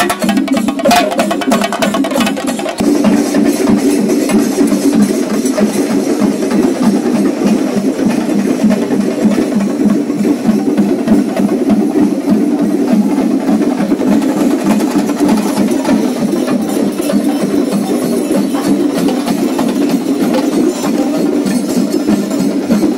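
A group of chenda drums beaten with sticks: loud, fast, dense drumming that keeps going without a break.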